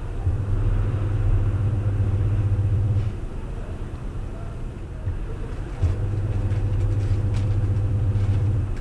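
A new washing machine running with a low hum. It stops about three seconds in and starts again about six seconds in.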